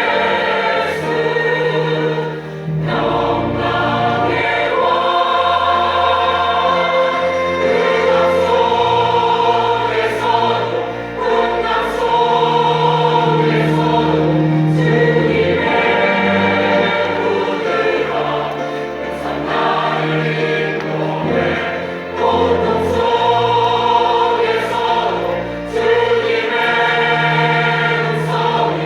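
Combined church choir singing a Christmas cantata.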